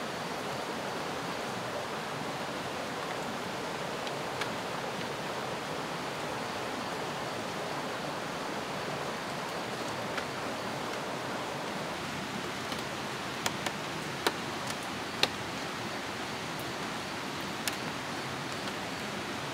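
Steady rush of a forest stream running over rocks, with a few sharp clicks of chopsticks against a bowl, clustered about two-thirds of the way through.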